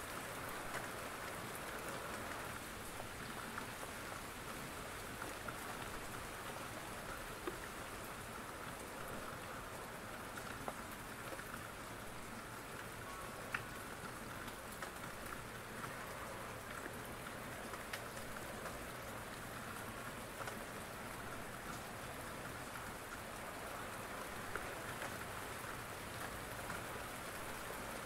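Steady rain falling, an even hiss with a few sharp single ticks scattered through it.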